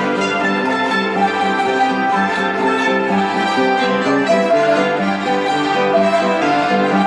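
Mexican salterios (hammered dulcimers) playing a Mexican song with a string ensemble, a steady, continuous stream of many overlapping notes.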